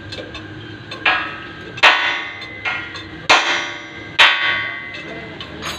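Hammer striking metal, each blow ringing briefly: about six blows at uneven spacing, under a second apart, the loudest three in the middle.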